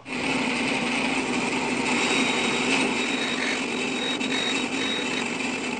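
Bandsaw running and cutting wood as a laminated wooden wheel is turned into the blade to trim its rim: a steady motor hum under a continuous hissing saw noise.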